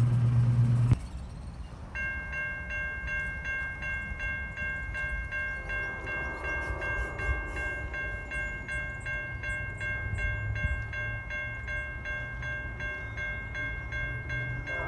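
Railroad grade-crossing warning bell ringing in an even repeating pattern, about two strokes a second, over a low rumble as a train approaches. A loud low hum cuts off suddenly about a second in.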